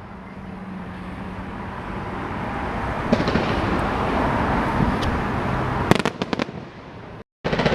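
A fireworks display: a dense, steady rumble of bursts that swells over the first few seconds, with a sharp pop about three seconds in and a quick run of crackling bangs about six seconds in. The sound cuts out abruptly for a moment near the end.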